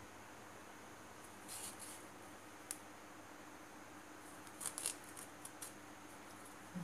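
Faint scratchy rasps of yarn and a sewing needle drawn through crocheted fabric during hand sewing: a few short rasps about two seconds and five seconds in, and a single click, over a steady light hiss.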